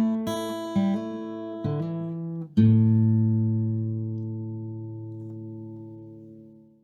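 Acoustic guitar music: a few strummed chords, then a final chord about two and a half seconds in that is left to ring and slowly fade out.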